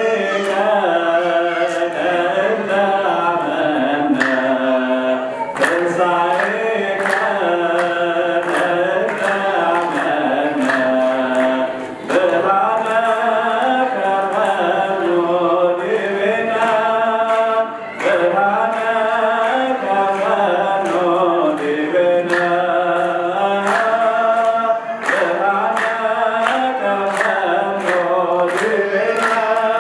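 A man singing an Ethiopian Orthodox hymn (mezmur) through a microphone and PA, in long drawn-out melodic phrases with a brief breath between phrases every six seconds or so.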